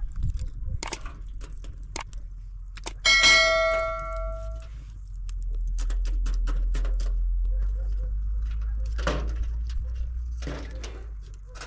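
A metal tool strikes the sheet-metal charcoal brazier, which gives one loud ringing clang about three seconds in that dies away over a second or so. Lighter clinks and knocks come before and after as the coals are stirred.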